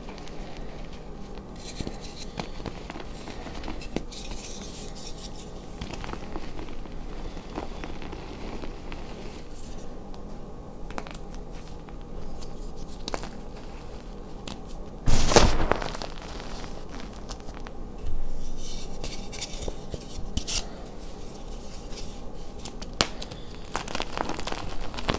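Hands crumbling and squeezing dyed gym chalk: dry pieces crunching and powder crackling between the fingers. One much louder crunch comes about fifteen seconds in, and a smaller one a few seconds later.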